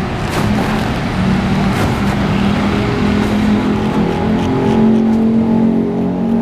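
Road traffic running steadily, with motor vehicles passing and several held horn tones sounding together from about three seconds in.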